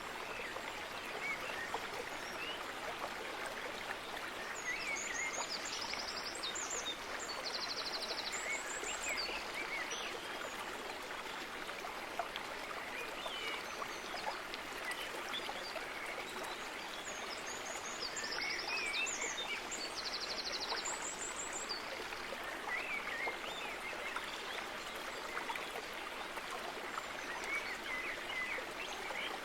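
Steady rush of running water, like a stream, with small birds chirping throughout. A high, fast-trilling bird song comes twice, about 13 seconds apart.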